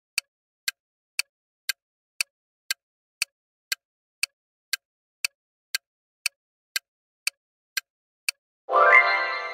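Countdown timer ticking sound effect, sharp even ticks about two a second, then near the end a louder ringing sound effect with several tones that fades over about two seconds, marking time running out.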